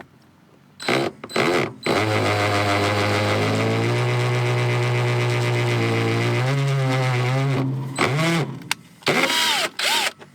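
Power drill run in two short bursts, then held for about six seconds with a steady whine whose pitch dips and recovers as it bites, then a few more quick pulls of the trigger, drilling or driving a screw into the van's floor for the heater mounting.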